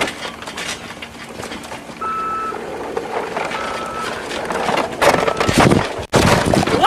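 Toys rattling and clattering as they are shaken to act out an earthquake, getting louder toward the end. Three short electronic beeps sound through it, about two, three and a half and five seconds in.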